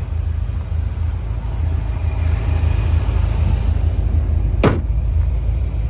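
A 1976 Chevrolet Corvette's stroked 350 (383) small-block V8 with headers idling steadily, with a low, even rumble. A single sharp click comes about four and a half seconds in.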